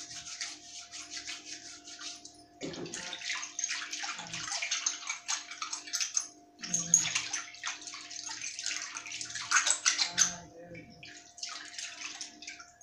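Hands scrubbing small brass items in a basin of brown cleaning water: splashing and swishing in bursts broken by short pauses, over a faint steady hum.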